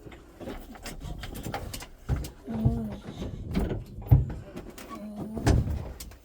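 A young child making bus noises with his mouth: short low hums and breathy sounds, broken by a few low thumps.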